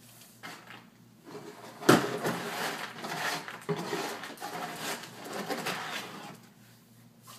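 A sharp knock, then about four and a half seconds of clattering and rattling from a dog's food bowl and its kibble, fading out near the end.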